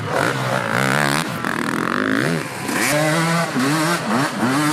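Several enduro dirt bike engines revving hard and dropping back, over and over, their pitch sweeping up and down as the bikes labour up a steep sandy hill under heavy load.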